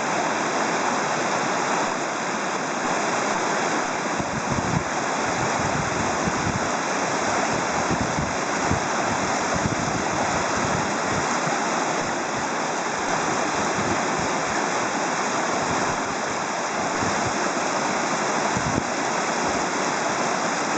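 River water rushing steadily past a ford, with a few brief low thuds in the flow.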